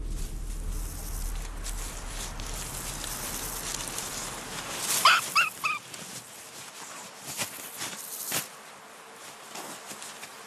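A rabbit squealing in distress as a northern goshawk seizes it: three or four short, pitched squeals about halfway through. A couple of sharp scuffles follow.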